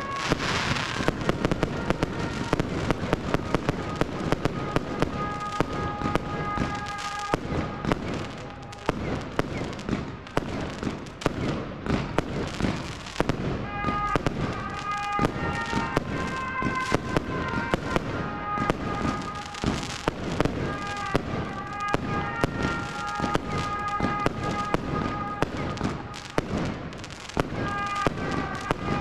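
Fireworks display: a dense, irregular run of firework shells bursting with sharp bangs and crackles. Music from public-address loudspeakers plays underneath, its melody most audible in the second half.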